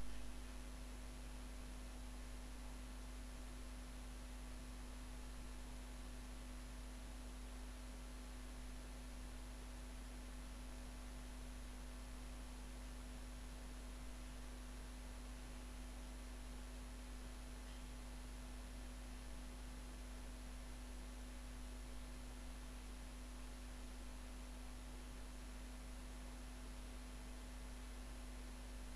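Steady low electrical hum with a fainter steady tone above it and a constant hiss, unchanging throughout.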